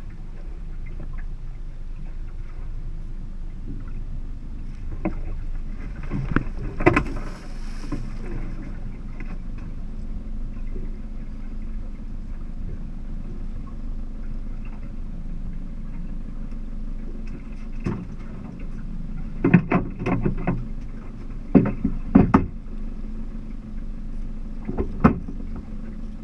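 Steady low rumble of a small fishing boat sitting on the water, with several short knocks and thumps on the hull, some in quick clusters about two-thirds of the way through.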